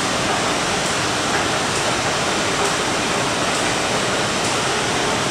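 Steady, even rushing noise of an underground metro platform's ambience, with no rise or fall.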